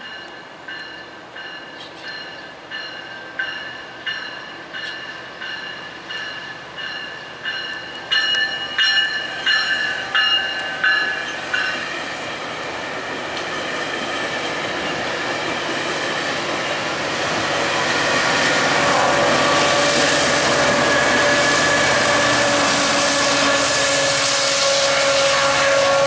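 A GO Transit bilevel commuter train departing and passing. For about the first twelve seconds there are regular ringing strokes, a little under one a second, mixed with wheel clicks, which grow louder about eight seconds in. The train's rumble then builds and, from about 18 seconds in, becomes a loud steady drone with a held engine tone as the MP40PH-3C diesel locomotive pushing at the rear goes by.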